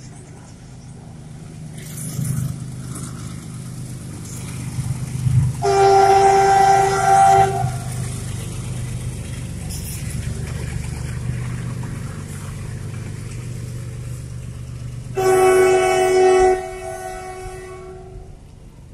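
GE WDG-4G diesel freight locomotive passing at the head of a container train, its engine giving a steady low chugging rumble. Its horn sounds twice, a blast of a second or two about six seconds in and another about fifteen seconds in, the loudest sounds here.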